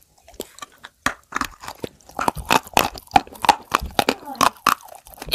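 Close-miked biting and chewing of Turkestan clay coated in clay paste: dry, crackly crunches, sparse at first and then coming thick and fast from about a second in.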